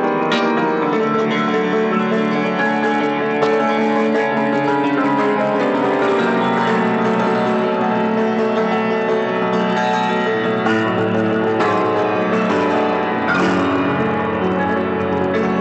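Prepared piano playing a dense, sustained wash of many ringing notes, with a few fresh notes struck along the way.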